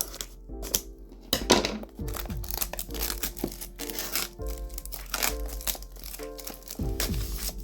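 Foil Pokémon card booster pack crinkling and tearing open, starting about a second in, over background music with a steady bass line.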